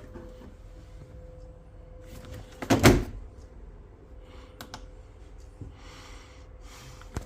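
A single loud knock about three seconds in, with a few lighter clicks and a faint steady hum underneath.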